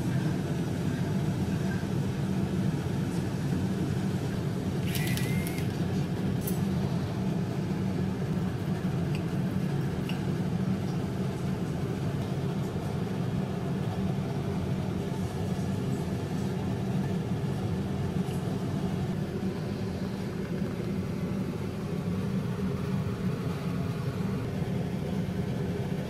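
Steady low machine hum. A brief high scrape comes about five seconds in, with a small tick just after.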